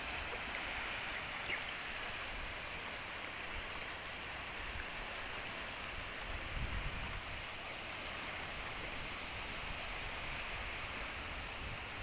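Small waves washing steadily onto a sandy beach, a continuous soft hiss of surf, with a brief low rumble a little past halfway.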